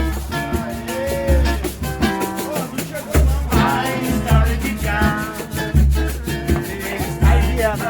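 Latin-style music with a steady bass beat and shaken percussion, with a singing voice coming in about halfway through.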